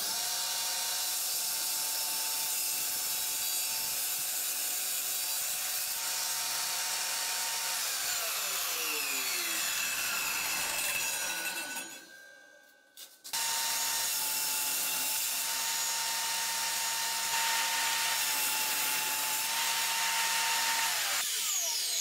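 Circular saw mounted under a homemade table saw, running with a steady whine as a crosscut sled carries a veneered chipboard panel through the blade. About eight seconds in it is switched off and winds down with a falling pitch. After a short gap it starts again abruptly, runs through a second cut and winds down again near the end.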